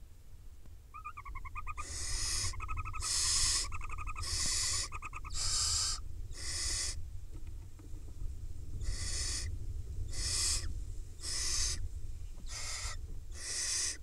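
Barn owl nestlings giving repeated rasping, hissing begging calls, about one a second. Over the first few seconds a fast pulsed twittering trill runs alongside them.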